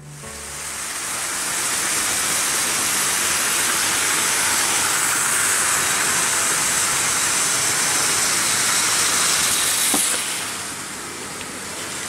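Märklin H0 model trains running on metal M-track: a steady rushing rattle of wheels on the rails that swells up over the first two seconds, with a click about ten seconds in after which it is somewhat quieter.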